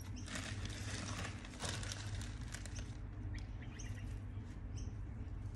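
Short high bird chirps repeating every half second to a second, over bursts of rustling in the first couple of seconds and a low steady hum.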